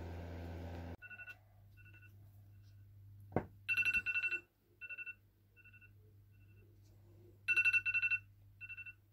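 iPad alarm ringing: short groups of fast electronic beeps repeating, loudest around the middle and again near the end, sounding the morning wake-up. A steady low hum cuts off about a second in, and there is a single thump just before the loudest beeps.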